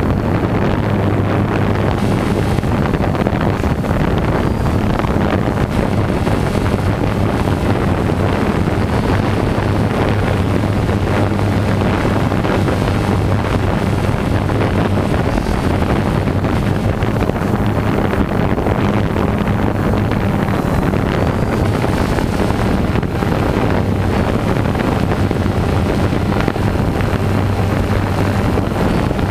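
Quadcopter drone's motors and propellers running in flight, a steady loud buzzing hum, mixed with wind rushing over the microphone on the drone.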